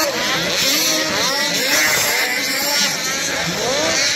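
Several two-stroke race snowmobiles revving on a snocross track, their engine pitch rising and falling again and again as they accelerate and back off over the jumps.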